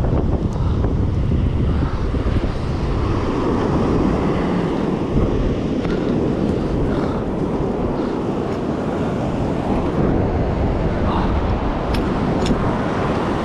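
Wind buffeting the microphone over the steady wash of surf breaking on a sandy beach.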